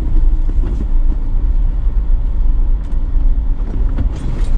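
Steady low rumble of a car heard from inside its cabin while it is being driven.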